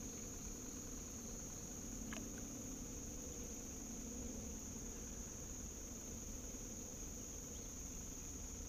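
A steady, high-pitched chorus of calling insects, with a faint low hum beneath it.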